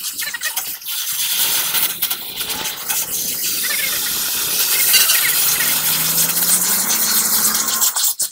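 Oxy-fuel cutting torch hissing steadily as it cuts into the steel of a truck's rear axle housing, with a faint crackle of burning metal. A faint low hum rises slowly in pitch in the second half.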